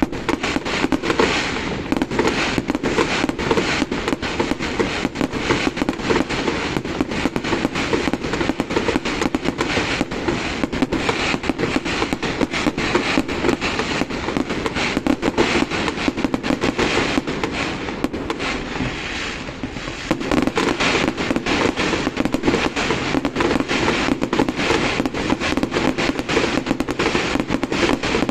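Fireworks display going off in a dense, rapid stream of crackling bangs, easing briefly about two-thirds of the way through before picking up again.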